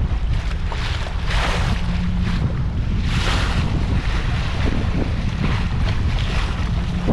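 Water splashing and rushing against a Catalina 22 sailboat's hull under sail in strong, gusty wind, with wind buffeting the microphone as a constant low rumble. The splashing surges about one and a half and three seconds in.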